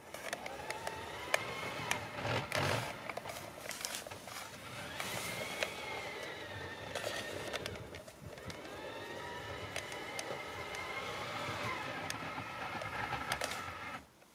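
LGB garden-railway locomotive running along snow-covered track: a motor whine that rises and falls in pitch several times, with scattered light clicks.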